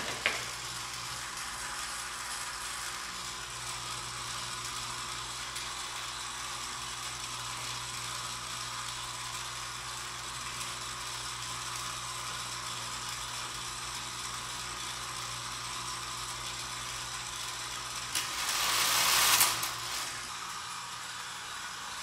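Electric motor and steel gear train of an Erector set model ride running steadily with a low hum and a ratcheting, geared whir. A click right at the start, and about eighteen seconds in a rushing noise swells for a second and a half, then cuts off suddenly.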